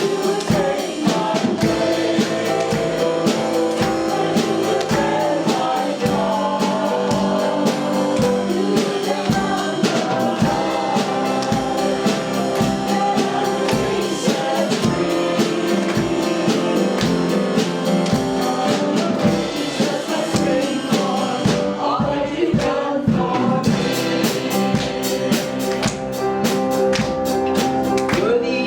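Worship band and singers performing a gospel worship song, with voices over a steady drum beat.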